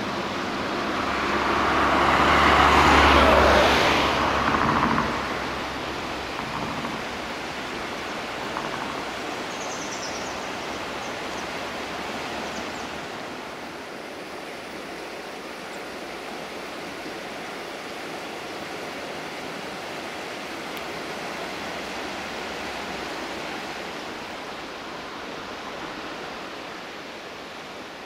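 A vehicle with a low engine hum passes close by, swelling to its loudest about three seconds in and fading by five seconds. A steady rushing noise carries on throughout.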